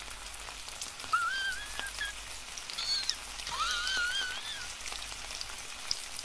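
A dog whining twice, high and wavering, over a faint crackly background, as it begs for food.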